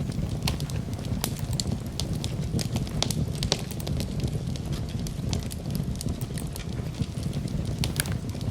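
Campfire crackling: irregular sharp pops and snaps of burning wood over a steady low rumble of the flames.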